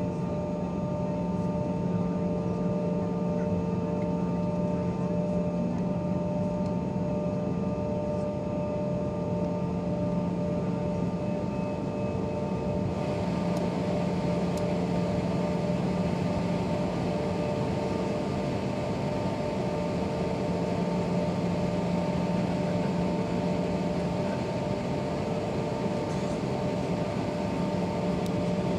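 Steady drone inside a parked airliner's cabin: ventilation and aircraft machinery with a few steady hum tones. About halfway through, a brighter hiss comes in and holds.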